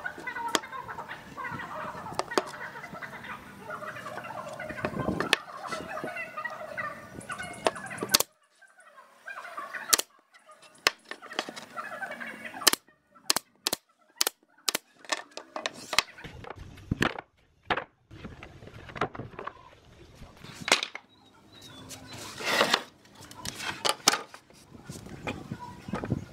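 Pneumatic brad nailer firing a series of sharp shots into pine boards, several in quick succession around the middle. Domestic fowl calling in the background during the first several seconds.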